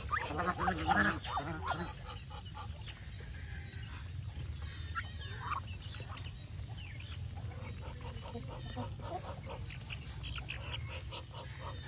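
Flock of domestic geese feeding among Muscovy ducks: geese honking in the first two seconds, then many shorter, softer calls and clicks scattered through the rest.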